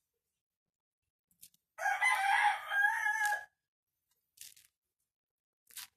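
A rooster crowing once, a call of about a second and a half that starts nearly two seconds in. A few short, faint crackles of coconut husk fibre being picked apart by hand come before and after it.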